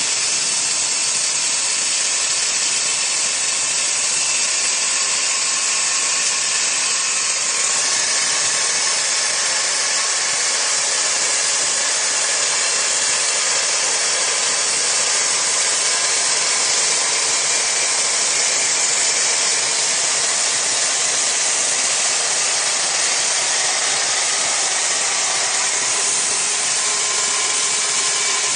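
A power saw fitted with a diamond ring blade cutting steadily. It gives a continuous hissing grind with a faint steady whine.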